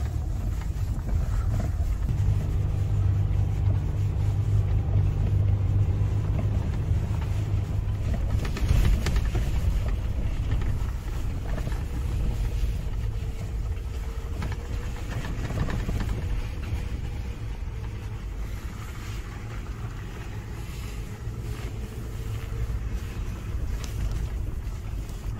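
Off-road 4x4 engine running under load while driving, a steady low drone that is strongest for the first several seconds and then eases to a softer, shifting rumble.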